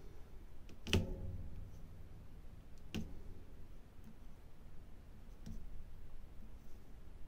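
Diamond-painting drill pen picking resin drills from a plastic tray and pressing them onto the canvas: a few scattered light clicks, the sharpest about a second in.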